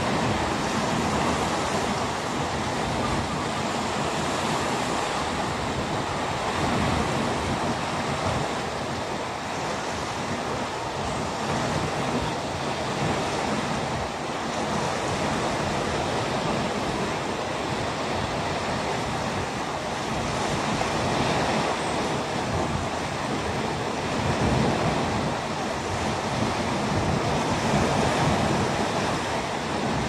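Calm sea washing gently in small waves, a steady rush that swells a little louder now and then.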